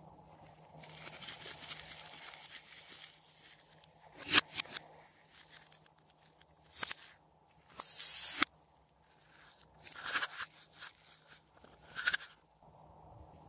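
Scissors cutting into a rubber balloon stress ball: a handful of separate sharp snips and one longer tearing cut of about half a second, with soft rustling handling noise between them.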